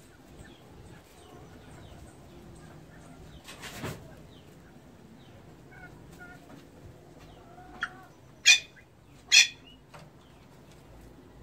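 Pheasants calling in an aviary: two loud, sharp calls about a second apart near the end, with a shorter call just before them. About four seconds in there is a brief rustle.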